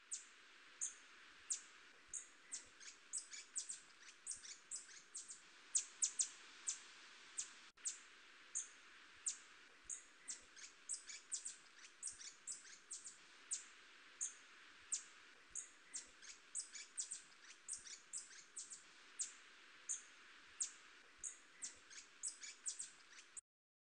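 Hummingbird giving short, very high chip notes, about two or three a second in an irregular run, over a steady background hiss.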